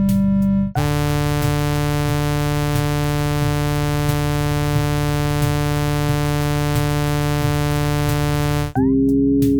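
Synthesized sonification tones: a steady held synth tone with a stack of harmonics switches about a second in to a lower, buzzier tone over a hiss. Near the end it switches again to a new tone that wavers slightly in pitch.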